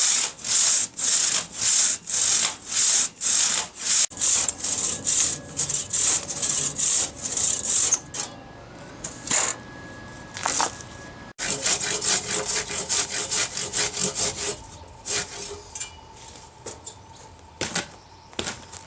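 Hand saw cutting through eucalyptus wood, steady back-and-forth strokes about two a second, then slower, fainter, uneven strokes from about halfway on.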